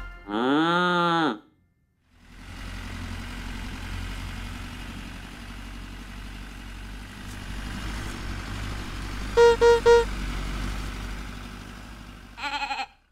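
A cartoon cow's single moo, rising then falling in pitch, followed by a cartoon tractor's engine running low and steady. About two-thirds of the way through come three short horn beeps, and near the end a brief bleat.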